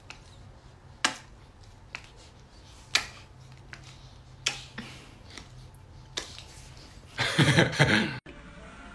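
A man planting smacking kisses on a cat, with a sharp loud smack every second or two and softer ones between. Near the end comes a louder, rough noisy burst lasting about a second.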